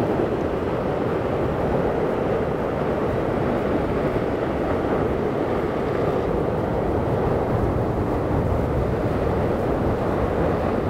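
Heavy surf breaking over a rocky shore: a steady rush of waves with wind buffeting the microphone.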